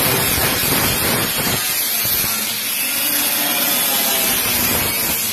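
A power tool cutting metal on the pickup, a loud steady hissing rush with no letup.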